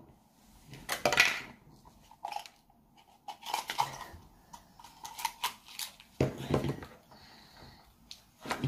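Small plastic toy pieces and a cracked Hatchimals toy egg shell being handled on a wooden table: irregular clicks, taps and crinkles, with a louder clatter about six seconds in.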